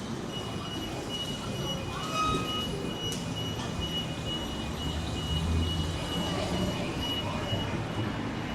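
Train running past with a low rumble and a steady high-pitched wheel squeal that sets in shortly after the start and stops near the end.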